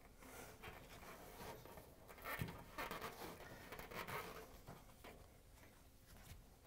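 Faint, irregular scraping and rubbing as a small flathead screwdriver and gloved hands work a dryer's rubber drive belt up out of a groove in the metal drum and back onto its wear mark, with a light tap about two and a half seconds in.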